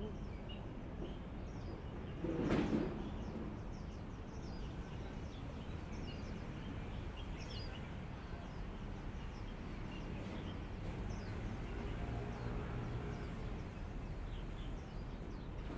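Small birds chirping in short, scattered calls over a steady low background noise, with a brief louder rush of noise about two and a half seconds in.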